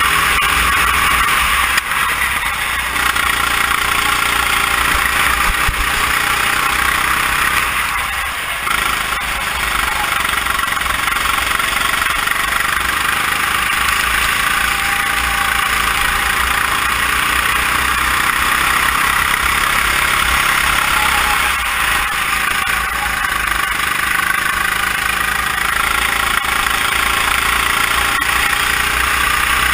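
Sodikart RT8 rental kart's four-stroke engine heard onboard at racing speed, its pitch rising along the straights and falling as the driver lifts off for corners, with two clear dips about 8 and 21 seconds in. Deep wind rumble on the microphone throughout.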